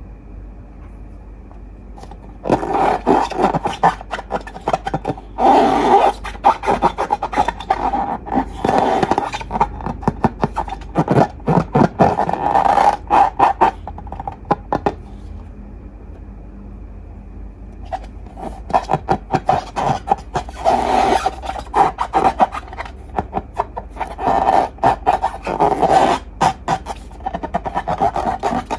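Glossy slime being worked and squished, giving dense wet clicks and crackles in two long stretches with a pause of a few seconds between them.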